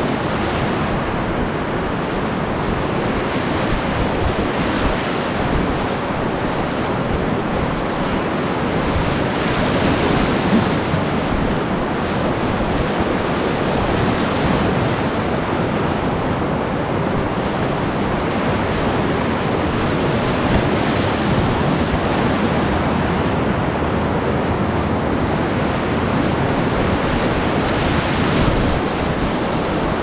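Whitewater rapids rushing and churning steadily around an inflatable kayak, with some wind buffeting the microphone.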